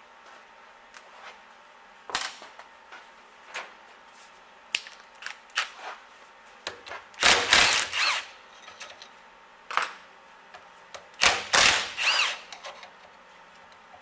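A few light clicks and knocks of handling, then a cordless power driver runs in two short bursts, about seven and eleven seconds in, its motor whine rising and falling as it backs out screws from a 1948 Chevrolet Delco-Remy generator.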